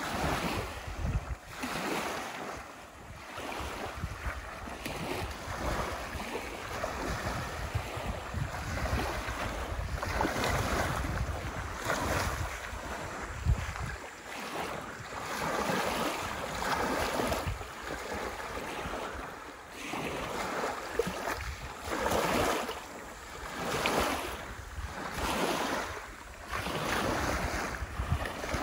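Small lake waves lapping and washing up on a pebbly shore, in surges that swell and ebb every couple of seconds, with wind rumbling on the microphone.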